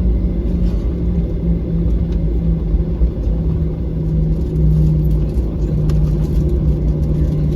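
Boeing 737-800 cabin during taxi: the CFM56-7B jets running at low taxi power, heard inside the cabin as a steady low rumble with a constant hum.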